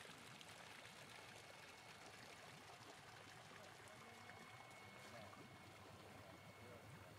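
Water from a hose pipe pouring and splashing into a fish-rearing net pen in a pond: a faint, steady rush of water.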